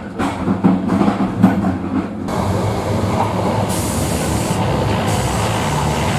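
Drum-heavy music ends about two seconds in, giving way to the steady rumble and hiss of a passenger train running, heard from inside the carriage, with a brief rise in hiss near the middle.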